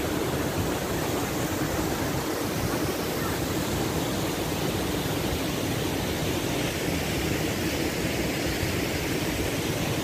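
Steady rushing noise of a tall waterfall.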